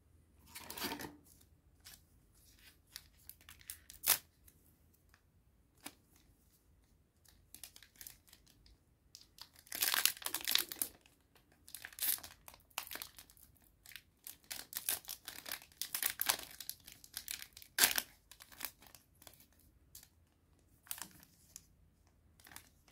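Foil Digimon Card Game booster pack being handled and torn open, crinkling and tearing in irregular bursts that are loudest about ten seconds in and again between fifteen and eighteen seconds, with a few sharp clicks.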